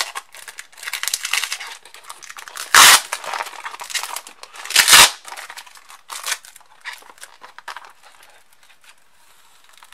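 Clear packing tape being peeled and ripped off a cardboard box, with two loud rips about three and five seconds in, amid crinkling of cardboard and plastic wrap; only faint handling crackles near the end.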